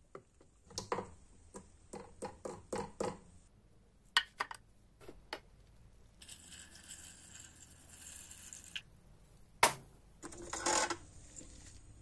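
Liquid from an electrolysis bath poured out of a glass jar into a tray: a steady splashing rush from about six to nine seconds in. Before it come a series of small clinks and knocks of handling the jar and the part. Just before ten seconds there is one sharp knock, the loudest sound, followed by a brief scraping rustle.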